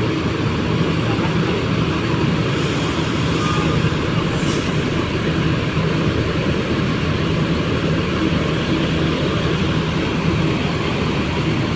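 Large diesel coach engine idling steadily, a low even rumble, with two brief hisses about two and a half and four and a half seconds in.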